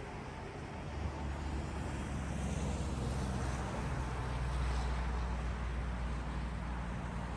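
Road traffic: a vehicle passes over steady traffic noise, its low rumble and tyre hiss swelling from about a second in, peaking midway and easing off.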